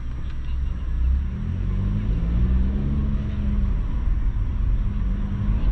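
Car engine running under low road rumble, the engine note climbing in pitch and growing louder from about a second and a half in as the car speeds up.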